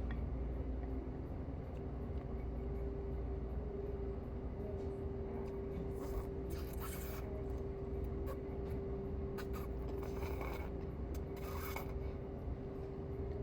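Steady room hum: a constant drone with a low rumble under it, broken by three short scraping noises about a second each around the middle.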